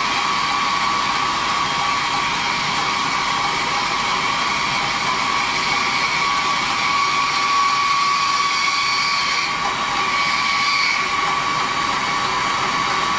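Diamond wire saw cutting dry through a steel H-beam, its beaded diamond wire grinding through the steel: a steady high-pitched whine over a hiss.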